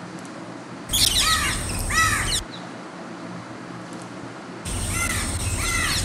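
Recorded house crow alarm calls played back: a rapid run of calls about a second in, lasting about a second and a half, then another run starting near the end. These are calls of a crow frightened by something.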